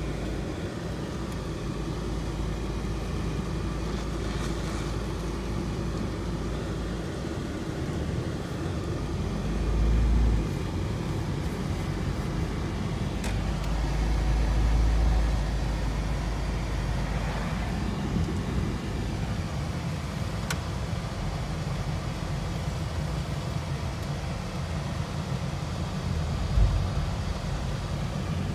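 Steady engine and tyre rumble of a moving car heard from inside the cabin, swelling lower and louder about ten seconds in and again around fifteen seconds, with a short thump near the end.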